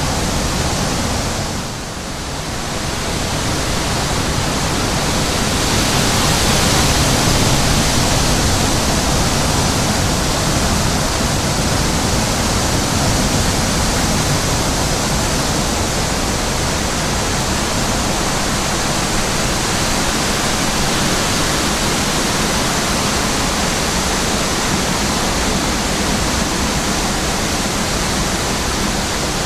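Steady wind rushing and buffeting, with a brief lull about two seconds in and a slight gust around six to eight seconds.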